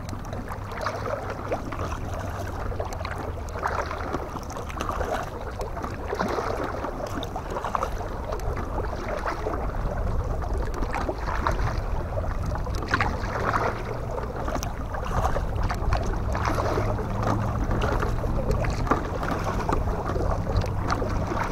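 Kayak being paddled: scattered small splashes of the paddle blades in the water over a steady low wind rumble on the microphone.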